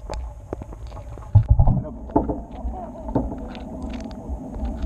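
Live crawfish legs and claws scraping and clicking against the camera, heard as scattered sharp ticks. About a second and a half in there is a heavy low thump of the camera being knocked or moved. After that a low steady hum runs underneath.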